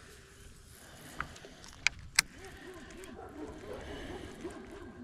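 A dog whining in short rising-and-falling whimpers from about two seconds in, after a few sharp clicks.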